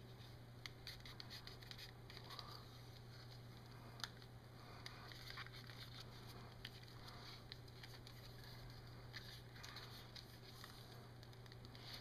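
Near silence: faint handling noise of small clicks and light rustles as hands work on a plastic power adapter and its tape, over a steady low hum.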